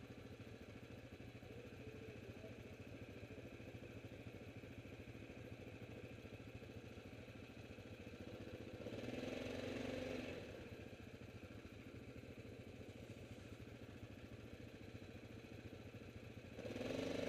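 Yamaha quad's engine idling steadily, rising briefly louder twice: once about nine seconds in and once near the end.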